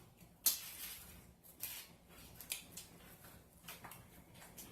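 Close-miked mouth sounds of someone eating pizza: wet chewing and lip smacks. A sharp smack comes about half a second in, followed by several softer clicks.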